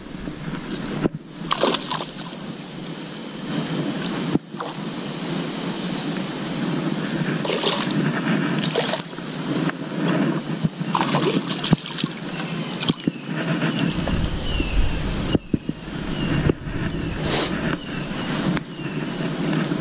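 A small bass splashing and sloshing at the surface on a fishing line as it is reeled in and pulled into the shallows. Sharp clicks and rustles from the rod, reel and hands handling the line sound throughout.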